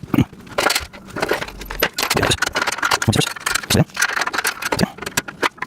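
Irregular metallic clinks, rattles and knocks as the steel pieces and screw hardware of a parts-bin rack are handled and fitted by hand during assembly.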